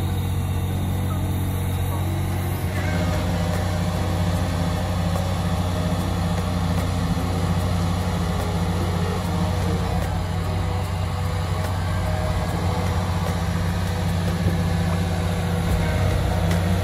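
Diesel engine of a Liebherr LTM 1220/1 all-terrain mobile crane running steadily at a low, even speed, its note shifting slightly about three seconds in.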